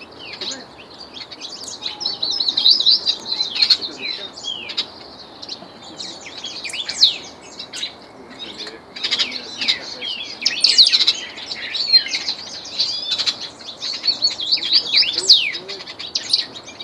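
Ultramarine grosbeak (reinamora) with a trained song singing a long, continuous run of quick chirps and short falling whistles, with brief pauses between phrases.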